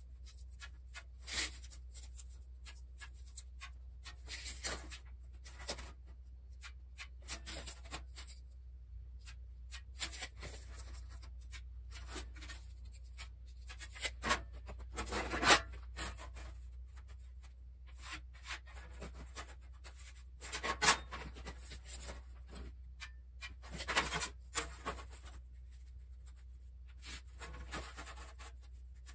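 A marker scratching layout lines onto a steel sheet in short, irregular strokes, with a few sharp clicks and knocks from tools being handled and set down on the metal.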